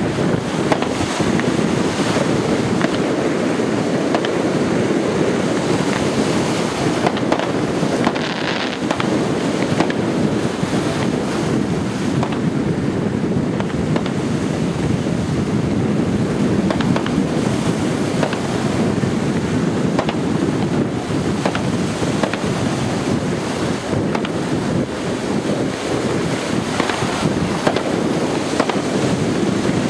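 Steady wind noise on the microphone, with distant firework bangs and crackles scattered through it.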